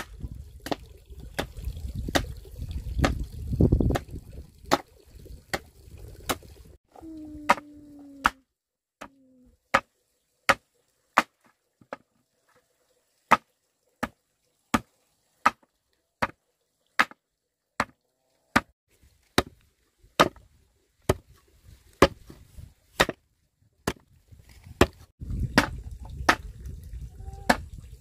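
Steady chopping with a blade on wood, one sharp stroke about every three-quarters of a second.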